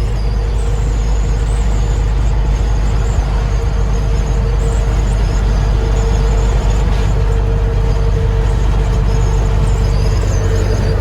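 Truck driving steadily down the road: a loud, even engine and road drone with a constant hum and faint high squeaks over it.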